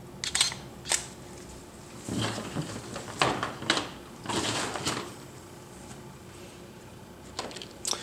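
Handheld camera being handled and fired: a few sharp clicks and short rustles at uneven intervals, with a quiet spell in the middle.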